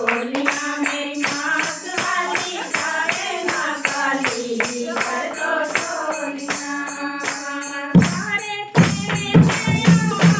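A group sings a Himachali devotional bhajan, with hand claps and drum beats keeping a steady rhythm. About eight seconds in, the drumming turns louder and heavier.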